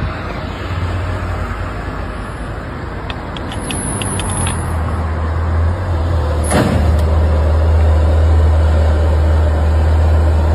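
Car engines running at close range, a steady low rumble that grows louder. About six and a half seconds in there is one sharp knock as a white car and a blue Porsche sports car collide at low speed.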